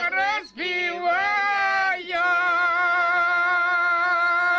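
An elderly woman and man sing a Don Cossack folk song unaccompanied, drawing out the vowels. The singing breaks briefly about half a second in and again near two seconds, then settles into a long note held steady.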